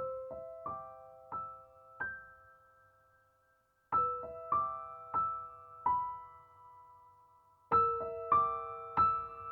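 Slow, gentle piano melody of single notes, each ringing out and fading, in three short phrases with brief pauses between them.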